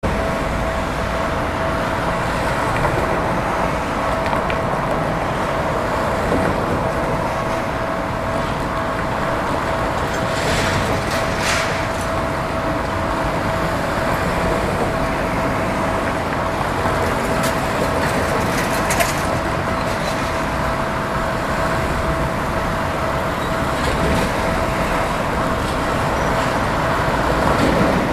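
Busy road traffic passing steadily, an even wash of engine and tyre noise, with a constant high-pitched hum underneath. A few brief hissing squeals cut in about ten to twelve seconds in and again near nineteen seconds.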